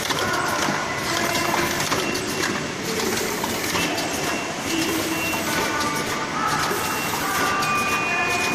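Automatic cartoning machine running, a steady mechanical clatter of quick clicks with brief squeaky tones over it.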